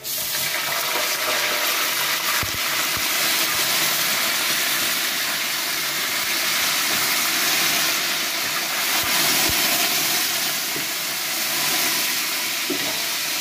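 Water poured into hot oil and browned onions, hitting the oil with a sudden loud sizzle that carries on as a steady hiss of spitting oil and steam while a metal ladle stirs.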